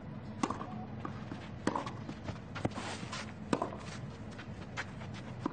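Tennis rackets striking the ball back and forth in a baseline rally, a sharp pop about every second.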